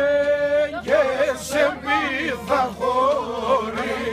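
Music with a man singing: a long held note, then a melody whose pitch bends and wavers.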